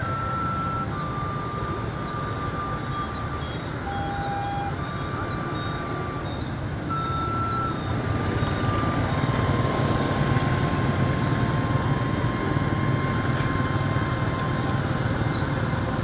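Steady rumble of a ridden motorbike's engine and wind noise in traffic, growing louder about halfway through. A thin melody of single held notes, background music, plays over it.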